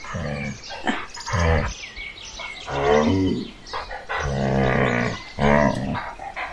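Brown bears growling and roaring as they fight in the water: about five deep, rough calls, each under a second long, with water splashing between them.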